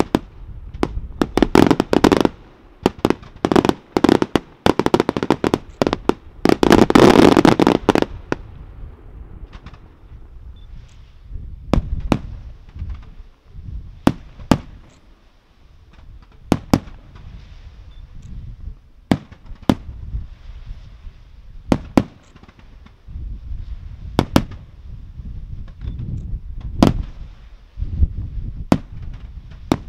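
Aerial fireworks display: a dense barrage of rapid bursts and crackling for the first eight seconds or so, then single sharp shell reports every second or two.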